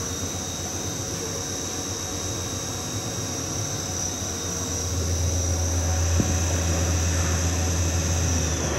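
Hurco VMX24t vertical machining centre running, a steady high-pitched whine over a low hum, with a single click about six seconds in.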